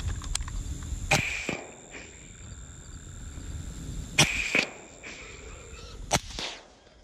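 Three shots from a suppressed hunting rifle, spaced roughly three and two seconds apart, each a sharp crack followed by a short echo.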